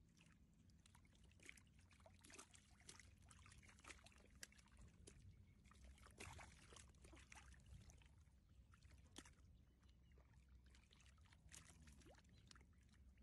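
Very faint, scattered little splashes and plops of frogs leaping at a hand held just above shallow rice-paddy water.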